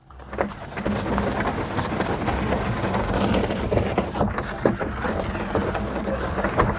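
Large plastic tubs being handled and shifted on gravel ground: a steady crunching, scraping noise with many small knocks.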